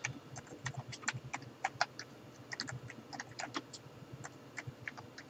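Typing on a computer keyboard: irregular keystrokes, several a second, as a short command is entered.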